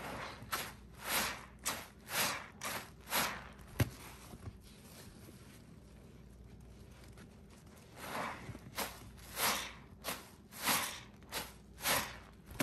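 Sponge soaked in thick soapy pine paste squeezed over and over by rubber-gloved hands: wet, foamy squelching squeezes about two a second, in two runs of about seven with a pause of about four seconds between them and a single sharp click near the end of the first run.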